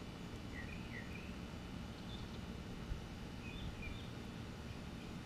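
Outdoor background noise, a low steady rumble, with a small bird giving short chirps a few times.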